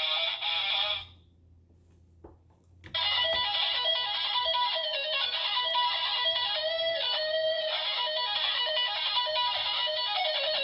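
Electric guitar music playing, cutting out for about two seconds shortly after the start and then coming back.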